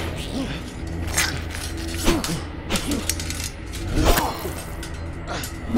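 Staged blade fight: about six sharp strikes and blade hits, spread unevenly, over a low steady music drone.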